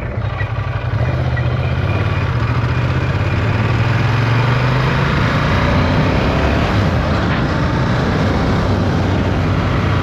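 Ducati Diavel's L-twin engine running under way as the motorcycle is ridden, getting louder about a second in and then holding steady, with wind rushing over the microphone.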